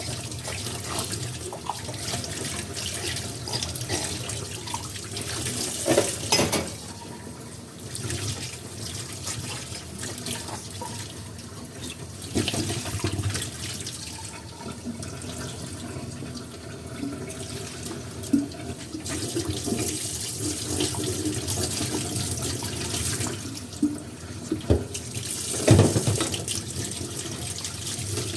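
Tap water running into a sink while dishes are washed, with the clinks and knocks of dishes being handled and set down.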